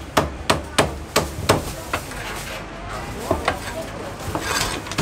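Cleaver chopping roast meat on a thick round wooden chopping block: six sharp chops at about three a second, stopping about two seconds in.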